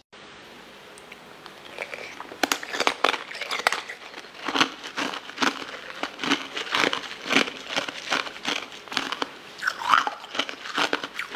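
A person biting and crunching hard frozen ice balls: irregular sharp cracks, several a second, beginning about two seconds in.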